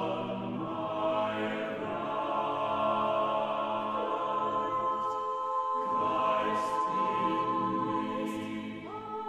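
Slow background music of long held chords that change every few seconds.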